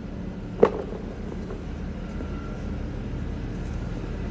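Tracked skid steer's engine idling steadily, with a single sharp knock about half a second in.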